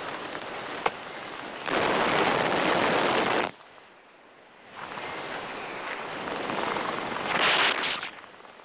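Wind rushing over the camera microphone of a skydiver descending under an open parachute. It comes in gusts: loud for a couple of seconds, dropping away suddenly for about a second, then building again. There is a sharp click about a second in.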